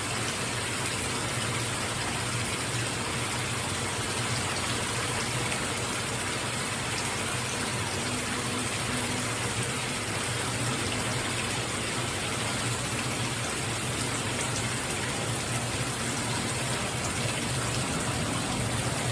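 Shower head spraying water in a steady, even stream, being run to flush it out after cleaning.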